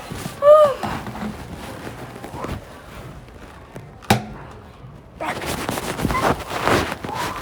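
Animated robot sound effects: a short pitched chirp that rises and falls under a second in, a sharp click about four seconds in, then a longer stretch of busy mechanical-sounding noise.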